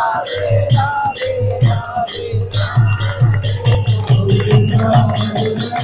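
Kirtan devotional music: a mridanga (two-headed clay drum) keeps a quick steady beat while kartal hand cymbals clash on the strokes, under a wavering sung melody with harmonium.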